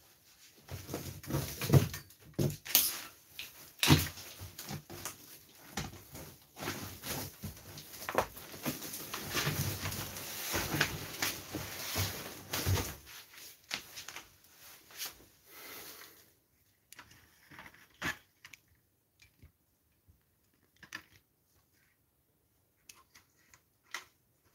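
Rustling, clattering and knocking of objects being handled close to the microphone, dense for the first dozen seconds, then only scattered clicks.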